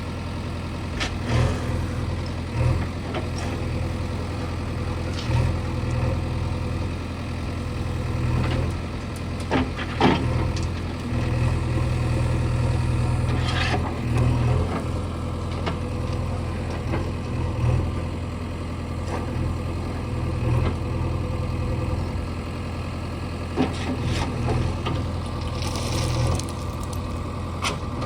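Diesel engine of a JCB 3DX backhoe loader running steadily under work, with sharp knocks and clanks now and then, the loudest about ten seconds in.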